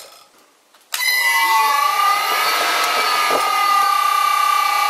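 Karger lathe's electric motor, run from an old Allen-Bradley VFD, starting about a second in and spinning up to a 60 Hz drive frequency. It gives a loud, high-pitched VFD whine in two tones that spread apart as it speeds up and then hold steady. This is the drive's harmonics noise.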